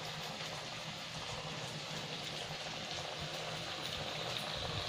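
Semolina-and-potato vadas deep-frying in hot oil in a kadhai: a steady sizzle.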